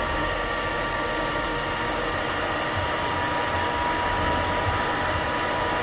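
Charcoal furnace under forced air: a steady rush of air and fire with a thin, high motor whine from the blower.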